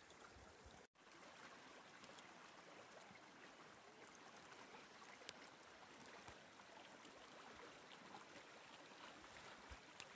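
Near silence: the faint, steady rush of a partly frozen creek, broken by a brief dropout about a second in.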